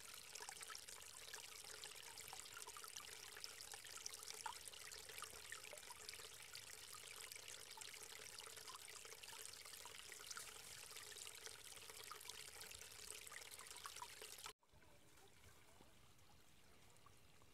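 Small woodland creek trickling and splashing, a faint steady flow of water with lots of little drips and spatters. It cuts off abruptly near the end, leaving only a quieter outdoor hush.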